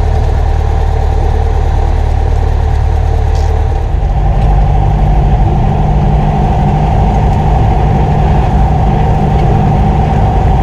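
Cessna 172's single piston engine running steadily at low power on the ground. Its note rises a step about four seconds in.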